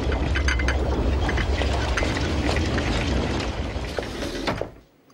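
A loud, deep rumble mixed with crackling noise, which cuts off about four and a half seconds in.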